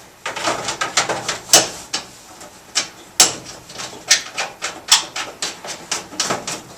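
Whole-house humidifier's access door being handled and fitted back on: an irregular run of clicks, taps and knocks, with a few sharper knocks among them.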